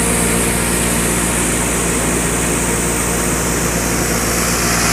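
Industrial pulverizer grinding machine running steadily while being fed material: a loud, even motor whir with a constant hiss.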